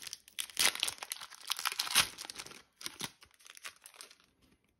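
Foil wrapper of a Pokémon trading-card booster pack being crinkled and torn open by hand, loudest about two seconds in. It thins out to a few soft rustles as the cards come out.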